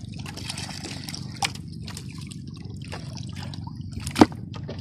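Water sloshing and trickling around a small wooden outrigger boat, with dripping and a few sharp knocks. The loudest knock comes about four seconds in.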